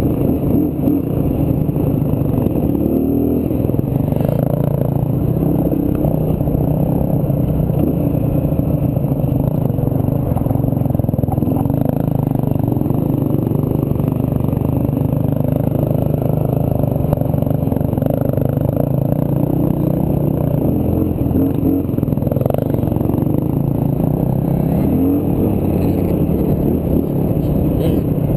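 Dirt bike engine running hard under way, its pitch rising and falling a few times with the throttle and gear changes, with rushing wind noise on the microphone.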